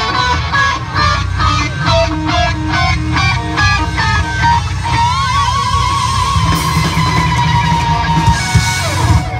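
Live rock band playing with an electric guitar lead. A run of short, clipped notes over drums and bass gives way about halfway through to one long held note with vibrato, and the band stops just before the end.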